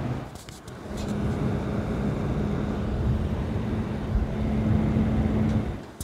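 Several CiT Infinity Turbo Ring PC case fans running at 100% speed: a steady rush of air with a faint low hum. It gets louder about a second in. The fans are audible but not especially loud.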